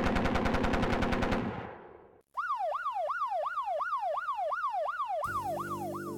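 A rapid machine-gun burst that fades away over about two seconds, then after a brief gap a police-style siren wailing, its pitch swooping up and down about three times a second. Music comes in under the siren near the end.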